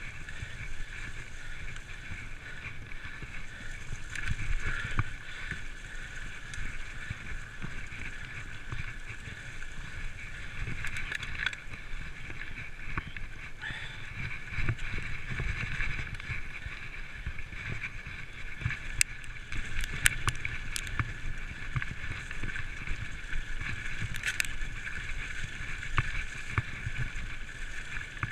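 Giant full-suspension mountain bike rolling along leaf-covered dirt trails: a steady low rumble of tyres and wind over a constant high whirring. Sharp rattles come as the bike jolts over bumps, a cluster of them about twenty seconds in and one more near twenty-four seconds.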